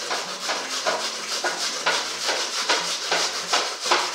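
Aipim-coco cassava root being grated by hand, with rhythmic rasping strokes about three a second.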